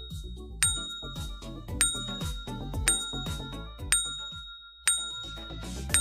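Countdown timer sound effect: a bright bell-like ding about once a second, six times, each ringing briefly, over low background music.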